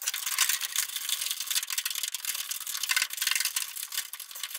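Rapid, thin metallic clicking and rattling of hand tools and hardware while seatbelt anchor bolts are fitted to the floor of a VW Bus.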